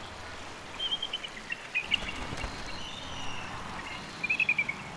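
Bald eagles calling: short runs of high, rapid piping notes, the loudest a quick series of about six notes near the end, over a faint steady hiss.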